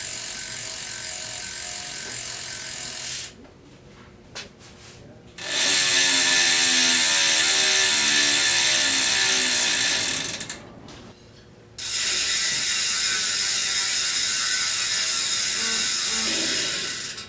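Bicycle rear hubs freewheeling one after another, the freehub ratchet giving a fast, even buzz of clicks. A quieter hub runs for about three seconds, then after a short pause a much louder one for about five seconds, its clicks slowing as the wheel winds down, then after another pause a third loud one for about five seconds.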